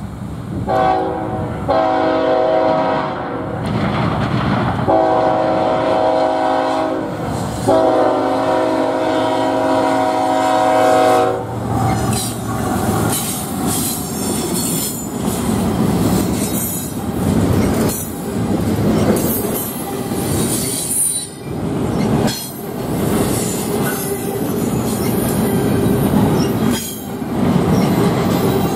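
Lead diesel locomotive's air horn, a GE ES44AC, sounding several blasts for the grade crossing, the last one the longest and ending about eleven seconds in. Then the locomotives and double-stack intermodal cars roll past close by: steady wheel-and-rail rumble with repeated clicking over rail joints and occasional high wheel squeal.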